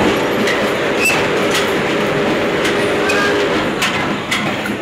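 Inside a moving railway passenger car: the steady rumble of the car running on the rails, with irregular sharp clacks and rattles every half second to a second.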